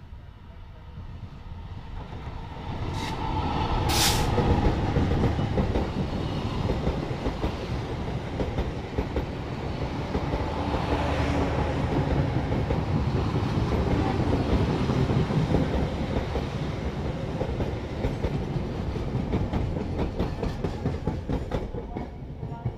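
Train passing close by on the line through a station: the sound builds over the first few seconds as it approaches, with two brief sharp noises about three and four seconds in. Then a long steady rumble of steel wheels on rail, with a rhythmic clatter of wheels over rail joints near the end.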